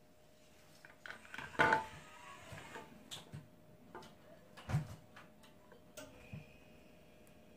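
Handling noise on a tabletop: a charger and a smartphone being set down and picked up, a run of clicks and knocks. The loudest is a sharp knock a little under two seconds in, with a duller thump just before five seconds and a few lighter ticks between.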